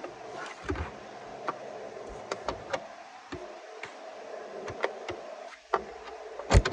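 Irregular light metallic clicks and taps as a screwdriver bit is worked round a little at a time on a long dash screw, with one sharp, louder click near the end as the screw comes free.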